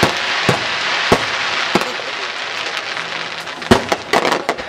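Fireworks exploding: a string of sharp bangs about half a second apart, then a rapid cluster of reports near the end, over a continuous crackling hiss.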